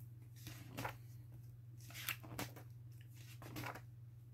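Glossy pages of a large book being turned by hand: a few soft, faint rustles and crackles of paper. A faint steady low hum runs underneath.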